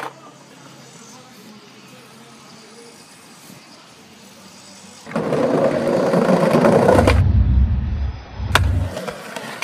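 Skateboard rolling and dropping down a stair set, heard in slowed-down playback: a loud, deep rumble sets in about five seconds in, with a single knock near the end as the board lands.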